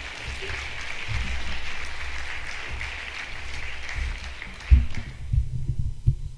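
Audience applauding, fading out about five seconds in. Near the end come low thumps and knocks as the podium microphone on its stand is handled and adjusted.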